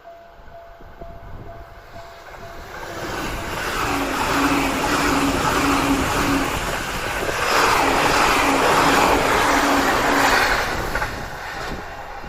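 E259 series Narita Express electric train passing at speed: a rushing roar of wheels on rail that builds from about three seconds in, is loudest through the middle, and dies away near the end. At the start a level-crossing warning bell rings in quick repeated dings, about two to three a second, drowned out once the train arrives.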